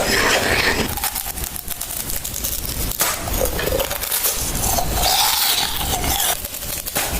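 Close-miked chewing and crunching of asinan buah, Indonesian pickled fruit, in a run of many short crisp crunches.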